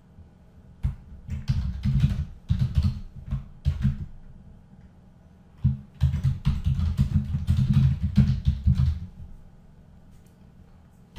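Typing on a computer keyboard: rapid key clicks with dull thuds, in two bursts, one about a second in and the second from about six to nine seconds in.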